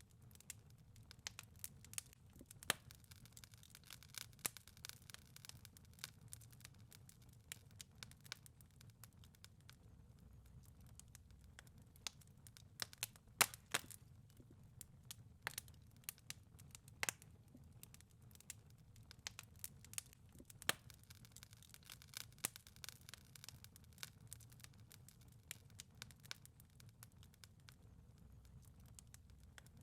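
Wood fire crackling in a fireplace: quiet, irregular pops and snaps over a soft low rumble.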